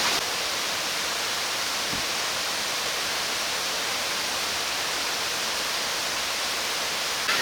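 Waterfall cascade rushing steadily, a constant wash of water noise, in full rainy-season flow.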